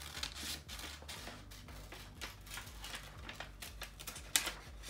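Scissors cutting through a sheet of paper: a series of irregular crisp snips, the sharpest about four and a half seconds in.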